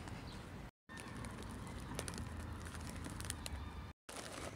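Outdoor ambience with wind rumbling on a phone microphone and scattered light crackling clicks. The sound drops out twice for a moment.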